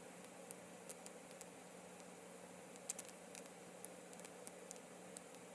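Faint steady hiss with a low hum, broken by scattered sharp, high ticks at irregular intervals, several in quick succession about three seconds in.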